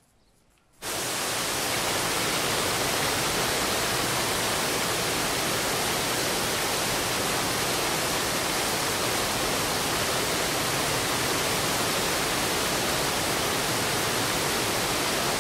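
Waterfall pouring down onto the bathers: a loud, steady rush of falling water that cuts in suddenly about a second in.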